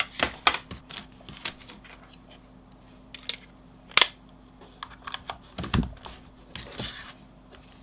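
Irregular clicks and taps from a mobile phone being handled while it is checked for charging, with a faint steady hum underneath.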